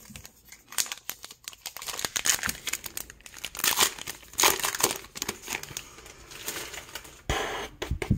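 Plastic wrapper of a baseball card pack being torn open and crinkled in the hands, with irregular rustling and crackling as the cards are pulled out.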